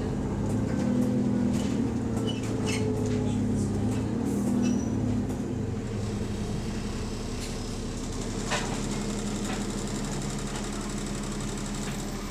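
Diesel engine of a double-decker bus running, heard from inside the passenger cabin. Its note is strong for the first few seconds, then drops and settles lower. Scattered light clicks and rattles come from the bus, with one sharper knock about eight seconds in.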